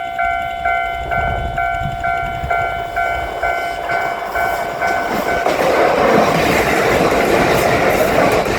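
Level-crossing bell ringing at about two strokes a second. About halfway in, a Kotoden Kotohira Line train passes through the crossing, and its running noise and wheel clatter drown out the bell.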